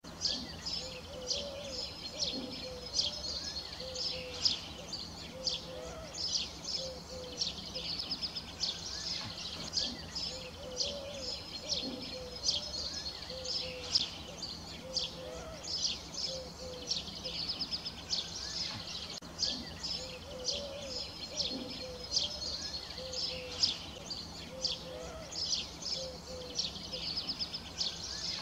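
Small birds chirping and trilling continuously, with a low cooing phrase of several notes repeating about every six or seven seconds.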